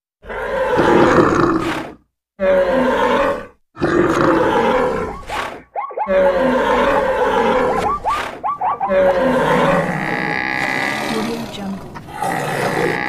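Stock animal sound effects: roars and grunts in several separate bursts over the first six seconds, then a longer unbroken run of calls with quick, wavering pitched cries in the middle.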